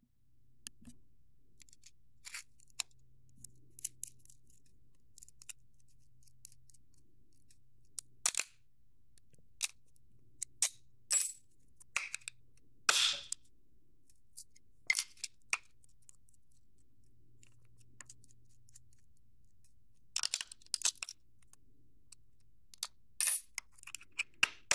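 Small metal hardware (nuts, bolts and washer hubs) clicking and clinking on a steel workbench as wood sprockets are unbolted and the parts set down, with a handful of louder clinks spread through, over a faint steady hum.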